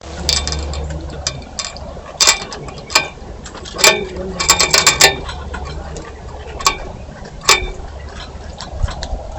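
Sharp clicks and knocks from birds at a bird feeder, most of them bunched together about four to five seconds in, over a steady low hum.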